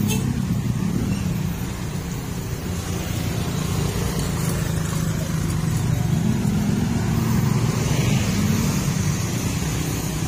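Slow street traffic of motorcycles and a minibus moving close by, their engines running with a steady low hum that rises and falls in pitch as they pull away and pass.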